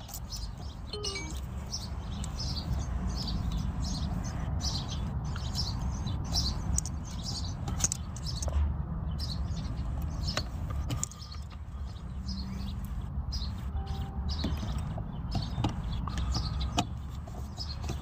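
Small birds chirping over and over, short quick calls, above a steady low rumble, with a few sharp small clicks from wires being handled.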